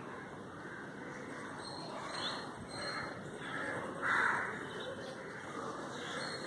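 A crow cawing, loudest once about four seconds in, with a few fainter calls before it over a steady outdoor background hiss.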